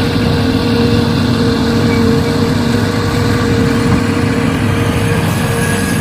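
An engine running steadily at a constant speed, with a held hum that does not rise or fall.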